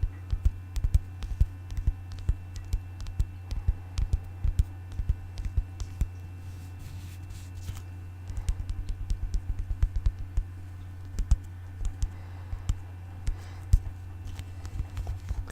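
Quick, irregular tapping: many sharp taps and knocks on a hard object, thinning out for a couple of seconds in the middle, over a steady low hum.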